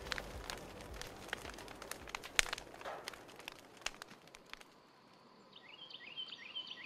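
Small wood campfire crackling, with irregular sharp pops and snaps, which stops about four and a half seconds in. Near the end a bird gives a quick series of short chirps.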